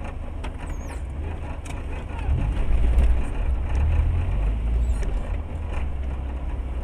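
Low rumble of a car driving, heard from inside the cabin through a dashcam. It swells for a couple of seconds about two seconds in, with a few faint clicks.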